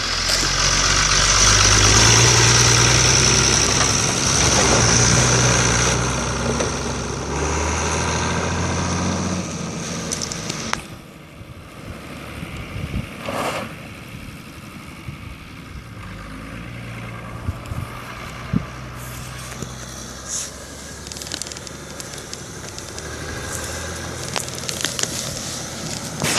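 1984 Iveco Z220 truck's six-cylinder diesel engine pulling away close by. Its note climbs and drops back several times as it works up through the gears. About ten seconds in it falls away into the distance, then comes back and grows louder as the truck drives back toward the listener.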